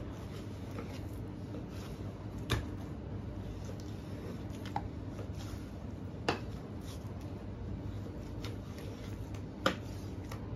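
Boning knife slicing raw beef hindquarter into steaks on a plastic cutting board, with four sharp taps spread through, over a steady low hum.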